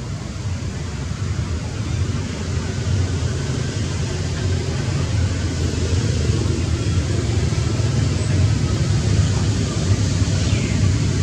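Steady low rumbling noise with a hiss above it, growing a little louder after about two seconds.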